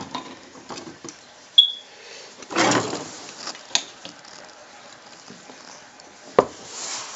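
Plastic LEGO Hero Factory parts clicking and rustling as the model is handled: a sharp click about one and a half seconds in, a short rustle near three seconds, and another sharp click near the end.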